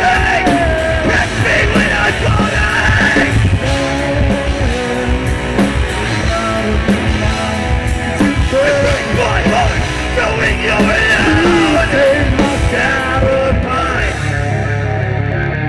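Live rock band playing loud: electric guitars, electric bass and a drum kit with cymbal crashes. Near the end the drums and cymbals drop out, leaving a held low bass-and-guitar note ringing.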